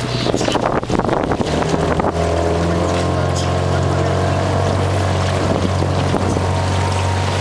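Motor launch's engine running steadily, its pitch stepping up about two seconds in as it speeds up. Wind buffets the microphone over the first two seconds.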